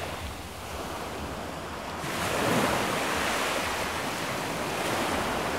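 Ocean waves washing as a steady rushing noise that swells about two seconds in.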